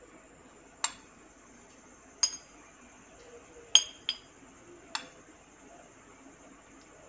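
Metal spoon clinking against glass as crumbled fruit cake is spooned into glass tumblers: five sharp, ringing clinks about a second apart, two of them close together near the middle.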